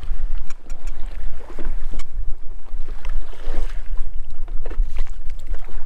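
Wind buffeting the microphone on a small boat at sea, a heavy, uneven low rumble over the wash of choppy water along the hull.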